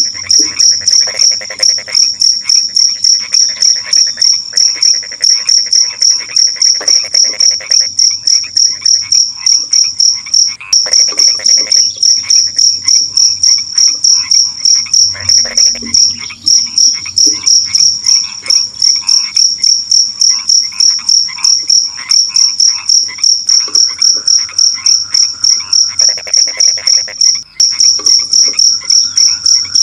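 Night chorus: a cricket chirps loudly and evenly, about three high chirps a second, while frogs call in shorter pulsed trains beneath it that come and go.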